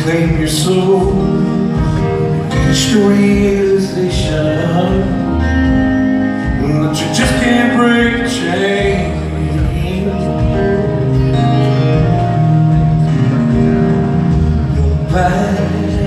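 Rock band playing live on stage, with guitars to the fore, heard from the audience in a large theatre.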